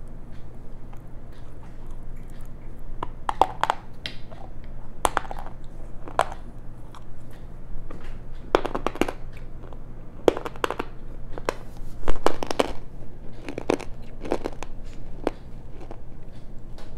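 Close-miked chewing of pieces of black slate and clay stone: irregular, crunchy bites and grinding between the teeth, with the loudest crunch about two-thirds of the way through.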